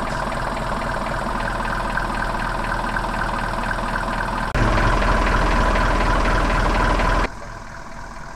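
A van's engine idling steadily with a regular knocking beat. It gets louder a little over four seconds in and drops back sharply about seven seconds in.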